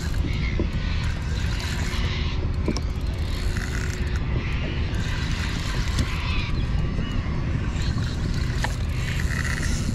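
Wind rumbling steadily on the microphone, with water sounds from around the kayak coming and going over it.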